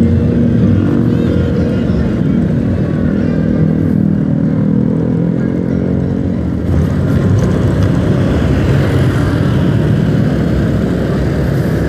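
Motorcycle engine running under way in traffic, with rushing wind and road noise on the rider's microphone. About halfway through, the engine note fades into a rougher rushing noise.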